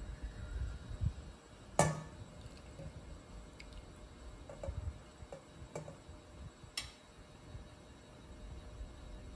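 Several light clinks of a metal soup ladle against a ceramic bowl and stainless steel pot as soup is ladled out, two of them sharper with a short ring, about two and seven seconds in.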